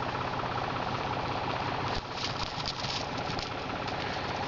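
An engine idling steadily, with a short patch of crackling about two seconds in.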